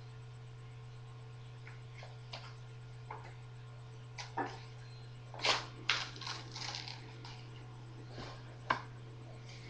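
Irregular handling noises: a series of short clicks and brief rustles, bunched together around the middle and ending with a sharp click, over a steady low hum.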